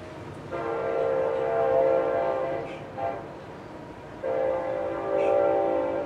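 A multi-tone train horn sounds two long blasts with a short one between them. Beneath it runs the steady whir of a 1988 TAT CFA2PC ceiling fan.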